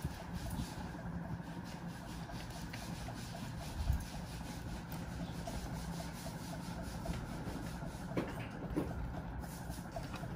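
Banana leaves crinkling and rustling as a monkey's hands pick at a leaf-wrapped cake in a bowl, with a soft bump about four seconds in.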